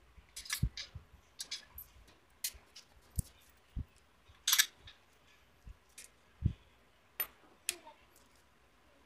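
Metal tools and parts clinking and tapping against an automatic transmission being assembled by hand, in irregular single strikes with several dull low thumps between them.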